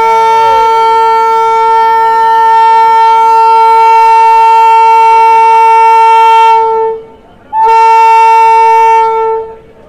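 Train horn sounded at departure: one long steady blast of about seven seconds, then a second, shorter blast after a brief pause.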